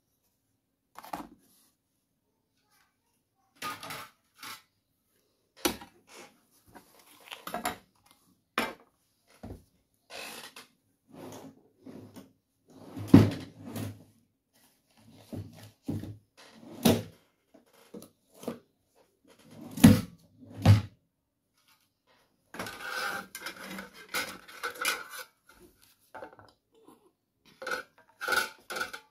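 Metal putty knives and scrapers being laid down and handled on a wooden tabletop: irregular clacks and knocks, with a couple of heavier thuds midway and a few seconds of rattling clatter later on.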